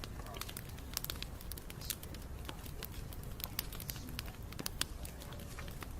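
Wood bonfire crackling, with frequent sharp pops and snaps scattered over a steady low rush of the flames.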